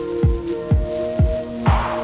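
Background electronic music with a steady kick-drum beat, about two beats a second, under held synth notes, with a brief hiss near the end.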